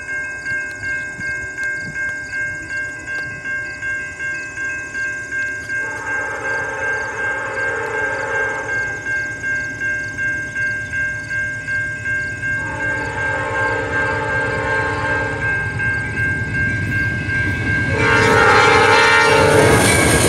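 A railroad crossing bell rings steadily while a Norfolk Southern freight train approaches, sounding its horn in two long blasts. Near the end a third blast comes much louder as the locomotive nears the crossing, with the train's rumble rising under it.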